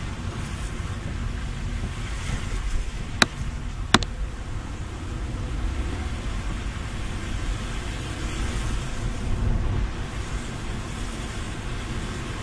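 Inside a car's cabin while driving on a wet road: a steady hiss of tyres on the wet surface with the car's running noise low underneath. Two sharp clicks about three and four seconds in.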